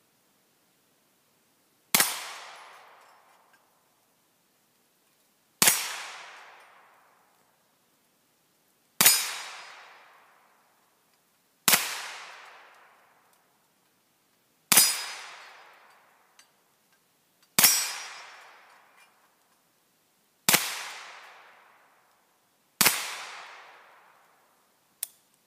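A 9mm carbine fires eight single shots at an AR500 steel target, spaced about three seconds apart. Each shot is a sharp crack followed by a ring that fades over a second or so.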